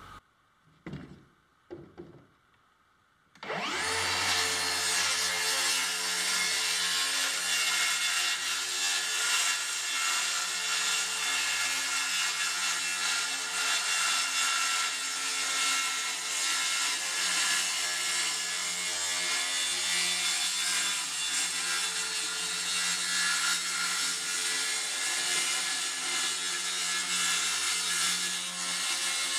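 A handheld power tool starts up about three and a half seconds in and runs steadily while it is worked along a plywood panel, cutting into the wood. Just before, a couple of brief faint sounds.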